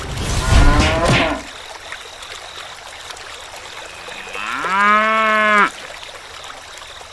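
A cow mooing twice: a short call at the start, and about four seconds later a longer one that rises in pitch, holds steady, and stops abruptly.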